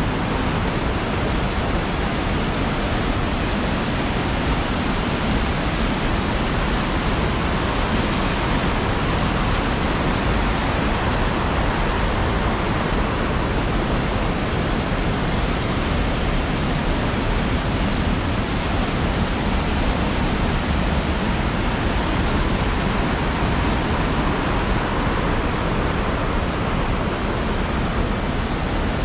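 Big Almaty River's white water rushing steadily down its concrete channel.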